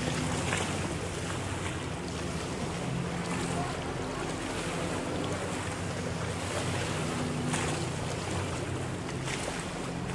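Motorboat engine droning steadily at open throttle, heard across open water, from an unmanned runaway ski boat circling on the lake. Wind buffets the microphone throughout.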